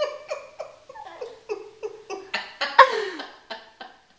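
A baby laughing in a run of short giggles, about three a second, with a louder laugh and a thump nearly three seconds in.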